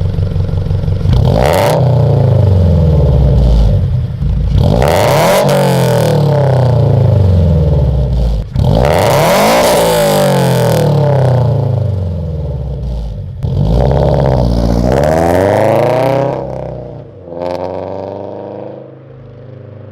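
Subaru flat-four boxer engine with freshly fitted Tomei unequal-length headers being revved four times, the pitch climbing and dropping back each time, then settling to idle near the end. The unequal-length headers give the uneven boxer rumble.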